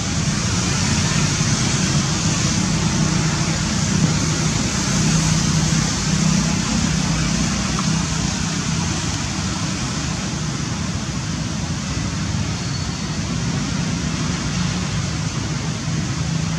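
Steady outdoor background noise: a continuous low rumble with hiss above it, without distinct events.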